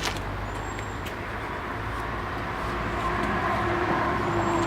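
Rockwell Delta 22-101 thickness planer, a 220-volt three-phase machine, running with no wood in it: a steady low hum with a rushing cutterhead noise over it. It grows slowly louder, and a higher whine comes in over the second half.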